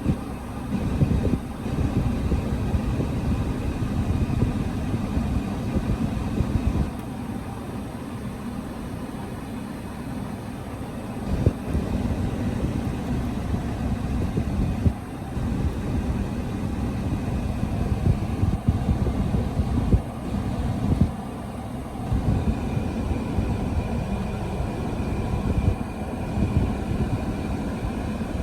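A car running, a steady low rumble, most likely the 2006 RAV4's 2AZ-FE 2.4-litre four-cylinder after the cooling-system and head-gasket repair.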